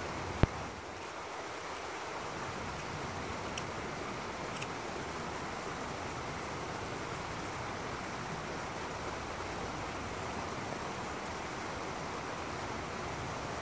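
Small woodland stream spilling over a low rocky cascade: a steady rushing of water. A single sharp click about half a second in.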